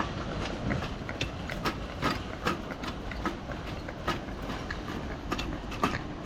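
A train running: a steady rumble with irregular clicks and knocks throughout.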